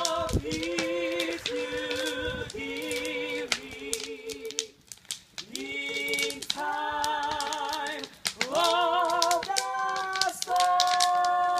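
A solo voice singing long held notes with vibrato, each note about a second, pausing briefly about five seconds in and then climbing to a higher, longer note near the end. Small clicks and knocks run through it.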